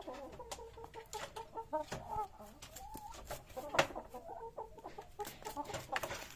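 Chickens clucking, a steady run of short, low clucks, with a sharp tap a little past the middle that is the loudest sound.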